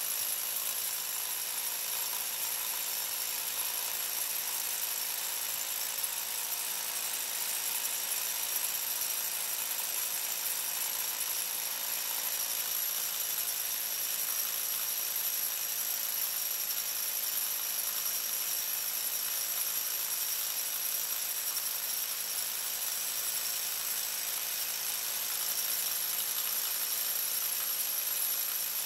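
TOTAL TH115326 1500 W SDS-plus rotary hammer hammer-drilling a 24 mm bit into a stone block, running steadily under load.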